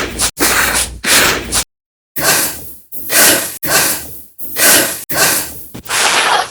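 A person breathing hard, quick loud breaths in and out, about nine in a row with one short pause about two seconds in.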